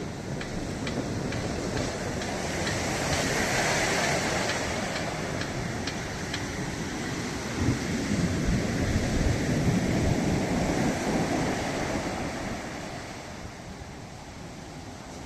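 Ocean surf, with waves breaking and washing in as a steady roar. A deeper low rumble swells in the middle, and the sound eases off somewhat near the end.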